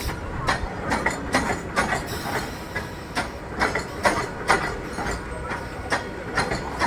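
Mumbai suburban electric local train running along the track: a steady rumble with wheels clacking over rail joints several times a second.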